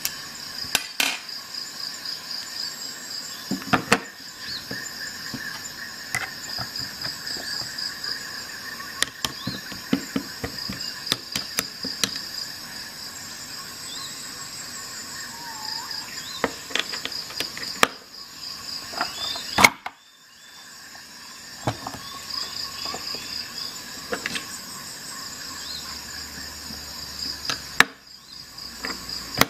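Small metal tools clicking and clacking as a bit-holder socket, a screwdriver bit and a ratchet are handled and set into a plastic tool case. The sharpest click comes about two-thirds of the way through. Under the clicks runs a steady high, evenly pulsing chirp.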